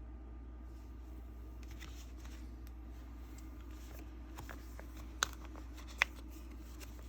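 Faint rustling of trading cards and plastic binder pages being handled, with small ticks and two sharp clicks about five and six seconds in, over a low steady hum.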